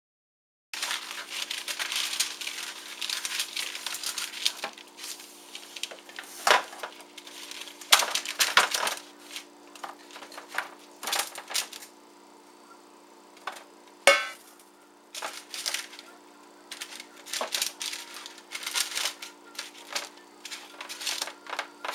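Kitchen handling noises while a baking pan is relined: parchment paper crinkling and rustling, with clicks and knocks of the pan and utensils and one sharp click about two thirds of the way in, over a steady low hum.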